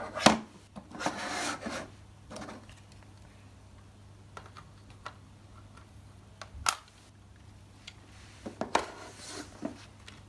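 Plastic building-brick model being handled: a few sharp plastic clicks and knocks with short scraping, rubbing noises between them, the loudest click just after the start and a cluster of clicks near the end.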